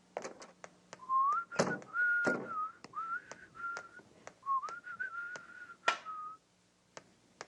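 A person whistling a short tune that starts about a second in and stops near the end, with scattered clicks and a few louder knocks in between.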